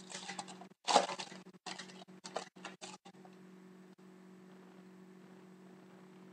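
Foil trading-card pack wrapper being torn open and crinkled by hand, crackling in bursts for about three seconds and loudest about a second in. After that only a faint steady hum remains.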